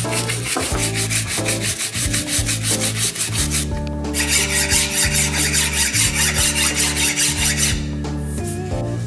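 A green abrasive scouring pad scrubbing back and forth by hand along a ribbed machete handle held in a vise, at about four strokes a second. It pauses briefly just under halfway through, then starts again. Background music plays underneath.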